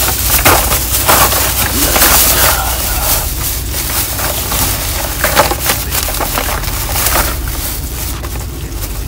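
Thin plastic shopping bag crinkling and rustling as a hand rummages through it, with a rapid run of sharp crackles.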